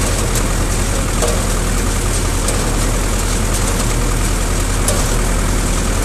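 1968 Zetor 5545 tractor's four-cylinder diesel running steadily under load while driving a Massey Ferguson 20-8 conventional baler, heard from beside the cab, with occasional light clicks from the baler mechanism.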